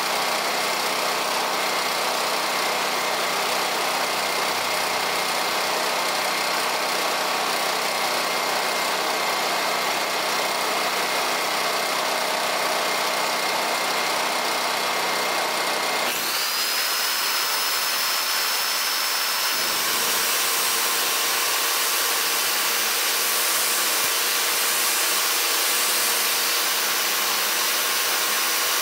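Nagano 3.6 kVA gasoline generator running under a load of about 2400 W, with an electric chainsaw and an electric string trimmer running off it together, their motors whining steadily. About halfway through the sound changes abruptly: the low end drops away and a high whine comes in, rising a little in pitch over a few seconds and then holding steady.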